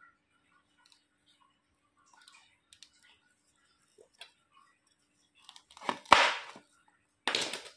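Handling noises from vegetable preparation: a few faint taps and clicks, then two loud, short, noisy bursts near the end.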